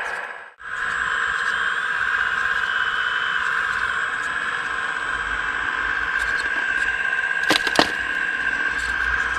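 Hydraulic pump and electric motor of a radio-controlled scale construction machine whining steadily. The sound cuts out for a moment about half a second in, and there are two sharp clicks close together near the end.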